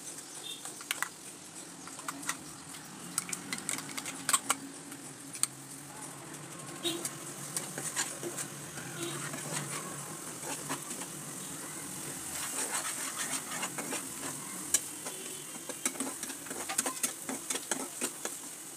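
A metal spatula stirs a masala of onion, tomato and green paste in a hot wok, scraping and tapping against the pan in irregular clicks. The oil sizzles steadily underneath.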